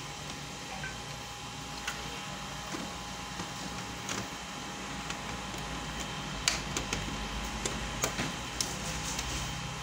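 Small plastic clicks and knocks as parts are handled inside an open Kyocera ECOSYS colour laser multifunction printer, a few scattered early on and a quick cluster in the second half, over a steady hum with a faint high whine.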